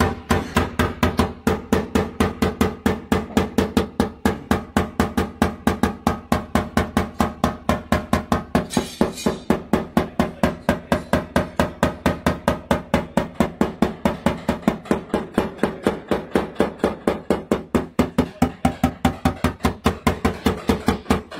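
Rapid, even light taps on a car fender's sheet metal, about five a second: a paintless dent repair technician tapping down the ring of high points around a dent to relieve stress while the dent is held up from behind.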